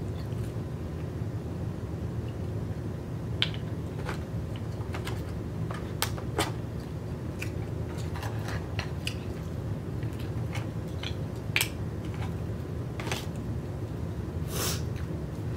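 Scattered small clicks and crackles of grilled oyster shells and a plastic fork being handled on a takeout tray, with some chewing, over a steady low hum.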